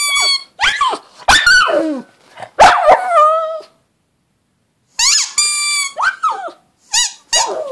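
Pug howling in a string of short, high yowls, several sliding down in pitch, with a pause of about a second midway.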